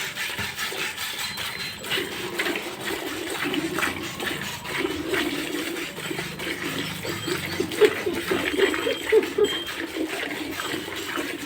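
A cow being milked: milk squirting into a metal pail in short, quick, uneven strokes.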